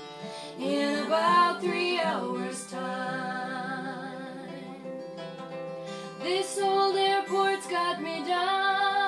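Two women singing a folk song together over a strummed acoustic guitar, their voices gliding and holding long notes.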